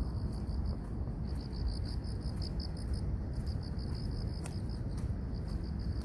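A cricket chirping in a steady pulsing trill, about six pulses a second, over a low rumble.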